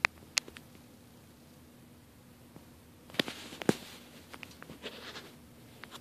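Handling noise: a couple of sharp light clicks near the start, a louder cluster of clicks and knocks about three seconds in, then a few softer taps and rustles.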